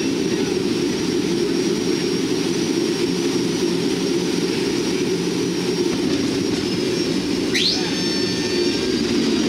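Cabin noise of a C-130T Hercules's four Allison T56 turboprop engines: a steady loud drone with a thin high whine above it. About seven and a half seconds in, a short whine rises sharply in pitch and several high tones follow.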